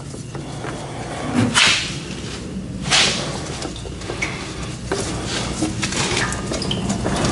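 Hands working at a tractor's fuel filter: two short rustling hisses, about a second and a half in and again at three seconds, then scattered small clicks and knocks, over a steady low hum.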